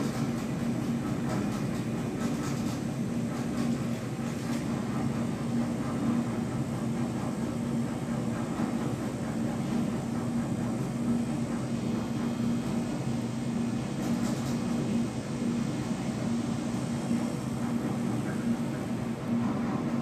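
Glass elevator cab riding down with a steady hum and rumble from its drive and cab, holding one constant low tone without a break.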